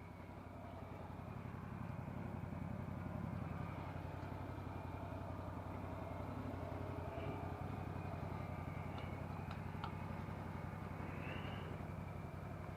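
CFMoto CForce 800 ATV's V-twin engine running steadily at low revs, with an even low drone throughout.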